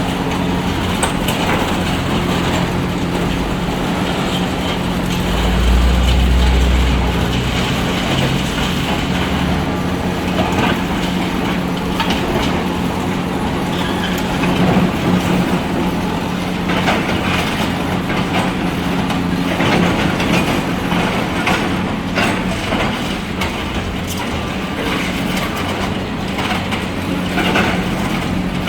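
Excavator diesel engine running steadily under load, with a deeper surge about six seconds in, over scattered knocks, cracks and scraping of demolition debris.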